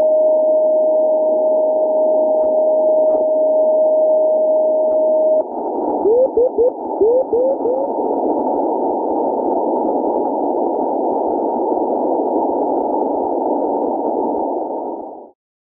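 Fishing-buoy radio beacon received in CW on the 10-metre amateur band: a steady carrier tone for about five seconds, then a quick string of short Morse pips, each sliding up in pitch, a chirp typical of these crudely built, frequency-drifting beacons. Receiver hiss through a narrow filter runs under it and cuts off abruptly near the end.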